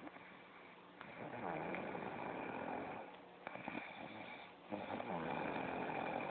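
A woman snoring in her sleep: two long snores of about two seconds each, with a quieter pause between them.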